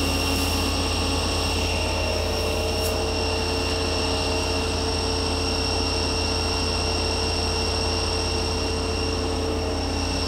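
Live tool drive on the turret of a Nakamura-Tome TW-20MM CNC turning center, running steadily at about 3000 RPM with no tool fitted: a steady hum with several high whining tones. At the very end the whine starts to fall as the drive is stopped.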